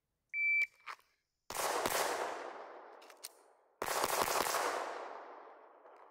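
A shot timer's short electronic start beep, then two quick strings of pistol shots about two seconds apart, each ringing out in a long echo.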